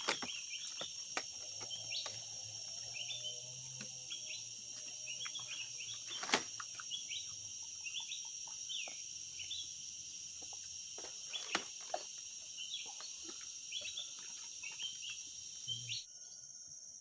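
Outdoor ambience of a steady high insect drone with a bird giving short rising chirps again and again. Scattered sharp clicks come through, loudest about six seconds in.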